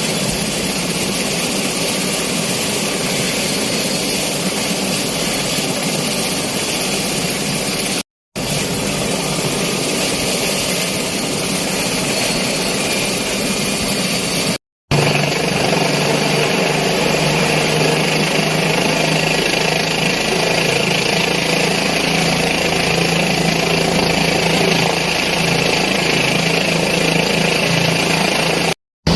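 Helicopter turbine and rotor noise, steady and loud, breaking off briefly three times at edits. It grows louder about halfway through, with a steady low hum.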